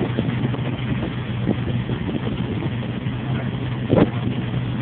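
A boat's freshly repaired engine running steadily with a low hum while underway, with water rushing along the hull and wind on the microphone. A louder thump comes about four seconds in.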